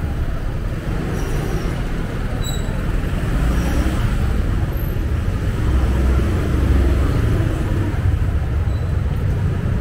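City street traffic: motorbikes and cars running along the road alongside, a steady low rumble that swells about six seconds in.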